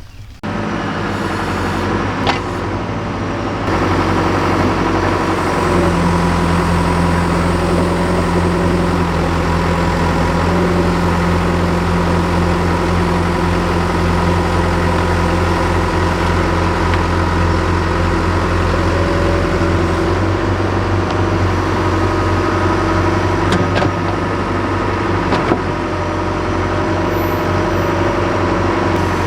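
Diesel engine of a working machine running steadily, stepping up to higher throttle a few seconds in, with a few faint knocks along the way.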